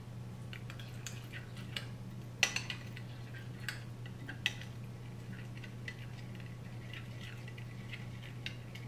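Metal spoon stirring a wet spice marinade of lemon juice, garlic paste and spices in a glass dish: soft scraping with scattered clinks of the spoon against the glass, the sharpest about two and a half seconds in.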